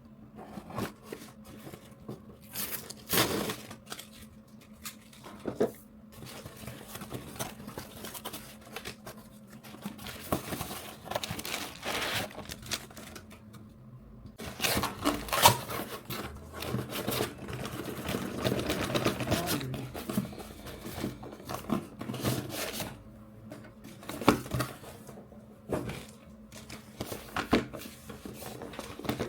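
Packaging being handled and unpacked by hand: crinkling, rustling and tearing of cardboard and plastic, with many scattered clicks and knocks, over a faint steady hum.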